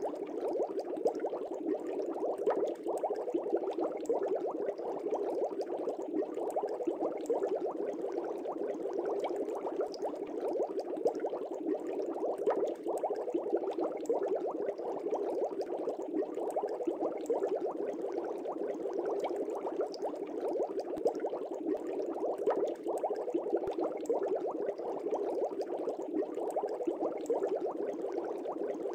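Continuous bubbling water: a dense, steady fizz of many small bubbles that never lets up.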